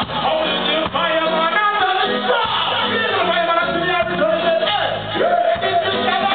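Live band music with a man singing into a microphone over drums and bass.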